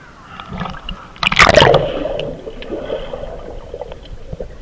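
Pool water rushing and gurgling over a camera as it plunges under the surface: a loud splash about a second in, then a muffled, bubbly underwater wash that slowly fades.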